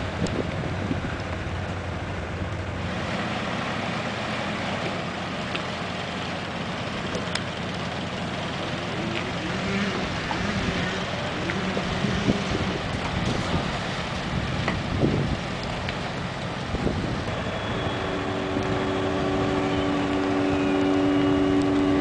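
Steady wind on the microphone over a low engine rumble from the departing cruise ship. About three-quarters of the way in, the ship's horn sounds one long, steady blast on a two-note chord, lasting about five seconds.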